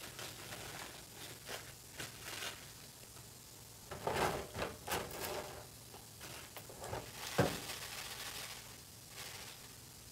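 Metal tongs clicking and crisp fries rustling as they are lifted from a deep-fryer basket and dropped onto a paper-towel-lined tray, with one sharper clack a little after seven seconds in.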